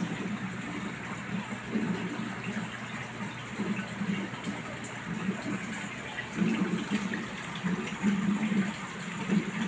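Aquarium water circulation running and gurgling in irregular surges, with a steady low hum underneath.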